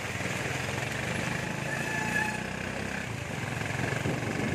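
A motorcycle tricycle's engine running under way, with heavy rain hissing steadily on the sidecar roof and the wet street.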